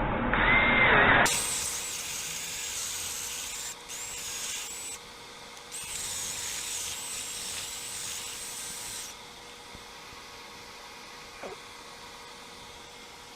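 Power drill running in bursts with a high, wavering whine, drilling out old leaking sealant from a hole in a concrete slab. It winds down in pitch about a second in, and the whining runs stop about two-thirds of the way through.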